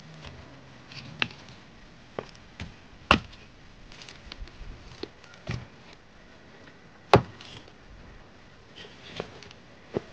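Dry sticks cracking and knocking together as they are handled to lay a campfire: scattered sharp snaps at uneven intervals, the two loudest about three and seven seconds in.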